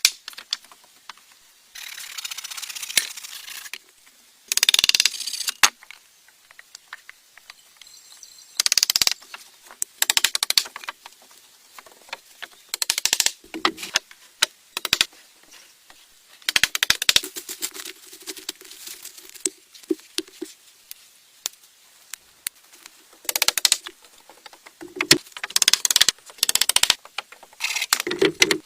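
Irregular taps, clicks and knocks with several short rasping or scraping bursts of about a second each, the sound of hand work with tools and materials.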